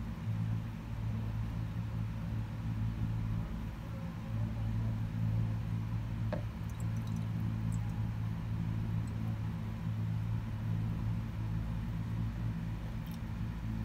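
Water pouring from a plastic jug into the priming port of a surface water pump, refilling the pump casing so that a pump which lost its prime by drawing air can restart. A steady low electrical hum runs underneath and is the loudest sound, with one light knock about six seconds in.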